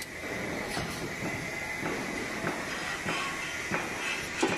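Automatic wire ring forming and butt welding machine running: a steady mechanical noise with a faint high whine, broken by irregular clicks and knocks, the sharpest one near the end.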